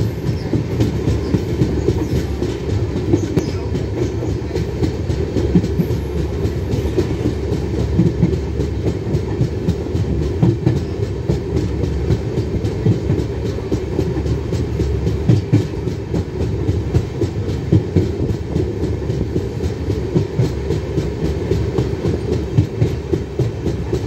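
Moving train heard from a carriage window: a steady low rumble of wheels on the rails, with frequent clicks and clatter from the wheels over the track.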